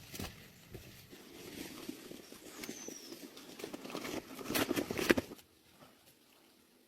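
Leaves and stems rustling and crackling, with a few sharp snaps, building up and then stopping about five seconds in.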